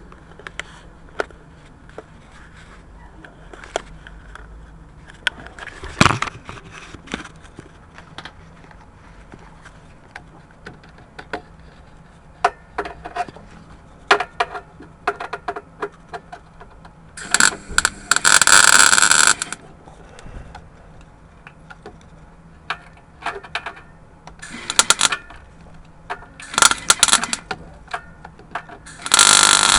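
Welder tack-welding a steel repair plate onto a van's front crossmember: short bursts of arc noise, one about two seconds long past the middle and three shorter ones near the end, with scattered clicks and knocks between.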